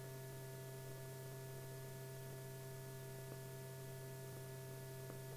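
Steady electrical hum made of several fixed tones, with a few faint clicks.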